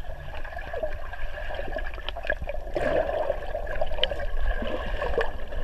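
Swimming-pool water heard from a camera held underwater: muffled bubbling and gurgling over a low rumble, with scattered small clicks.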